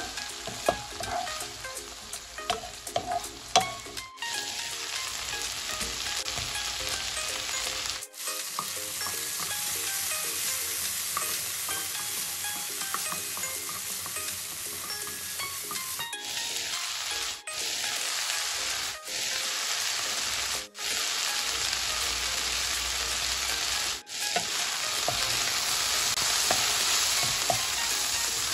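Peas, carrots, capsicum, onion and tomato sizzling in a hot nonstick pan as a wooden spatula stirs them. Sharp taps and scrapes of the spatula against the pan in the first four seconds, then a steady sizzle that cuts out briefly several times.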